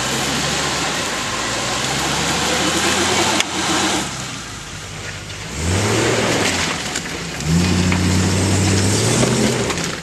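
Off-road 4x4's engine running with a broad rushing noise over it, then revved hard twice in the second half, each rev climbing quickly and then held.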